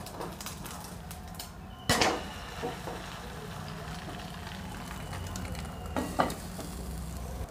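Omelette frying with a steady sizzle in a pan. About two seconds in there is one sharp knock as it is flipped over with a wooden spatula, and near the end two short knocks as a glass lid is set down on the pan.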